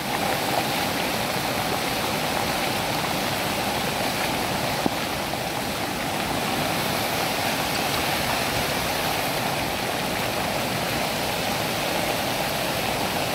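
Floodwater rushing steadily over a road and down a landslide-torn hillside, a continuous rush of running water.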